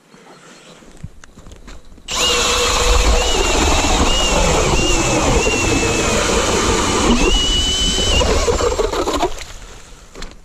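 Cordless drill spinning an ice auger down through thick ice: a loud motor whine starts about two seconds in, wavers slightly in pitch, and stops about nine seconds in.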